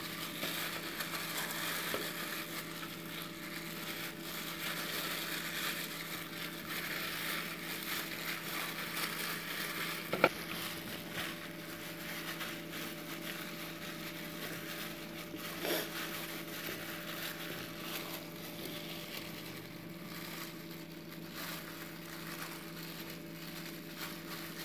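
Plastic-gloved hand rubbing a thick spice marinade into sole fish in a steel bowl: a wet squishing and rubbing. A faint steady hum runs underneath, and there is one brief knock about ten seconds in.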